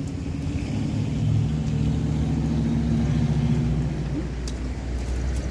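A motor vehicle's engine running close by, a steady low hum with rumble that fades out about four seconds in.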